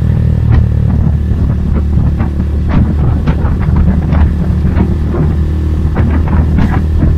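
Motorcycle engine running on the move, with wind buffeting the microphone.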